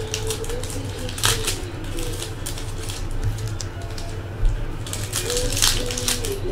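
Trading card pack wrappers crinkling and tearing and cards being handled, in short bursts: one about a second in and several more around five to six seconds in.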